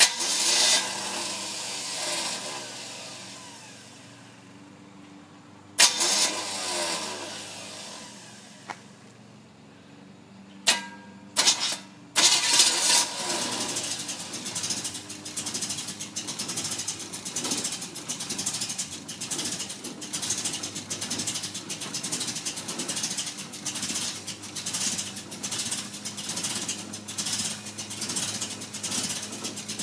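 1973 Camaro Z28 project car's engine being started for the first time: it catches and dies away twice, gives two short bursts near eleven seconds, then catches about twelve seconds in and keeps running with an even pulsing beat.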